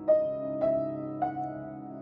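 Slow background piano music, with a new note struck about every half second and left ringing.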